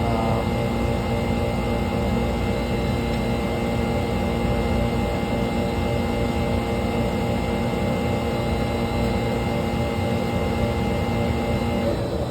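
Air compressor running with a steady hum of several tones over a low rumble; the hum cuts off suddenly near the end, as the compressor shuts off, while the rumble carries on.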